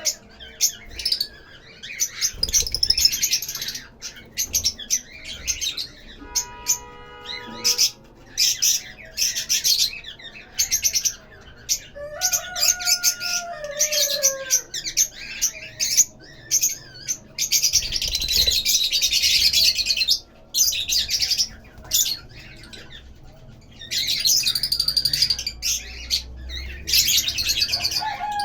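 Lovebirds chattering: rapid, shrill chirping in bursts of a few seconds with short pauses, with an occasional lower sliding whistle.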